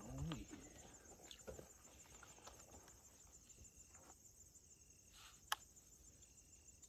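Near silence with faint, steady insect chirring, broken by a single sharp click about five and a half seconds in.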